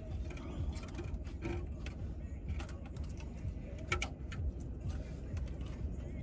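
Plastic fork clicking and scraping in a clear plastic takeout salad container, a few scattered clicks, over a steady low rumble in the car cabin.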